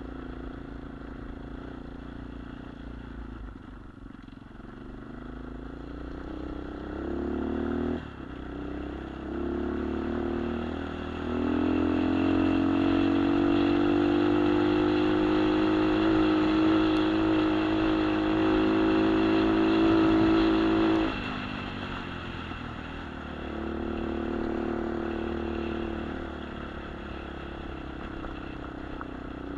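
Sprint Apollo RX 250 dirt bike engine under way. The revs climb, dip sharply about eight seconds in, then climb again and hold high and loud for about ten seconds. The engine drops off suddenly to lower revs, with a brief rise a few seconds later.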